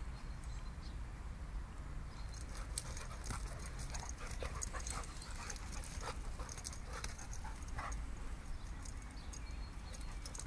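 A Doberman and a black dog play-fighting on grass: a busy run of quick scuffling clicks and short dog sounds, starting about two seconds in.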